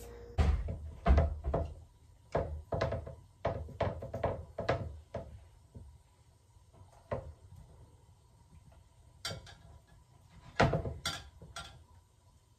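Irregular knocks and taps of a fork and a pan on a stone kitchen countertop as empanadas are folded and crimped: a quick run of knocks at first, then scattered ones, and a louder cluster near the end.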